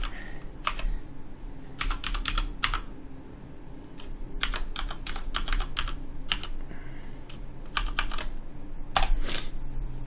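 Typing on a computer keyboard in short bursts of keystrokes, with one louder strike about nine seconds in, over a faint steady low hum.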